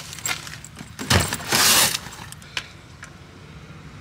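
Backpack being put into a car's cargo area: a few light clicks, then a low thump about a second in and a short loud rustling scrape as the bag settles on the trunk mat.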